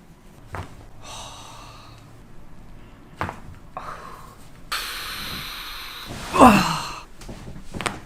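A patient's loud gasp, falling sharply in pitch, as a reaction to a chiropractic adjustment, after a long breathy exhale. A few short sharp clicks come earlier.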